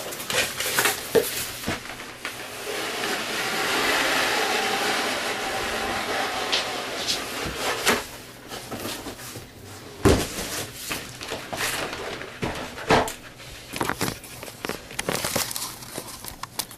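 Cardboard and plastic packaging being handled and opened: a stretch of steady sliding, scraping noise, then scattered knocks and clicks.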